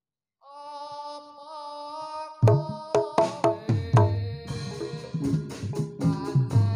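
Javanese gedruk dance music. After a brief silence a held melodic note sounds. About two and a half seconds in, hand-drum (kendang) strokes break in, and the ensemble takes up a fast, steady percussive beat.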